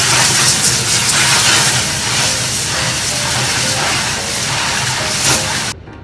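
High-pressure water jet from a pressure washer's spray wand blasting into a top-loading washing machine's plastic tub and the dirty water pooled in it: a steady loud hiss over a low motor hum. It cuts off suddenly near the end.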